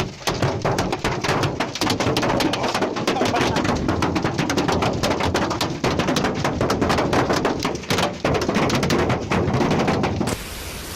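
Dense, rapid clatter of hailstones striking a hard surface, many irregular impacts close together. Near the end it cuts abruptly to a steady rushing noise.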